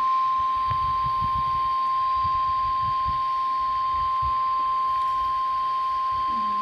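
NOAA Weather Radio 1050 Hz warning alarm tone: one steady, unbroken high beep, the signal that a warning (here a severe thunderstorm warning) is about to be broadcast.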